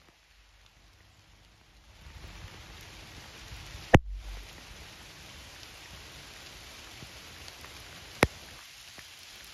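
Rain falling steadily, the hiss swelling about two seconds in. Two sharp taps cut through it, about four seconds apart, the first louder.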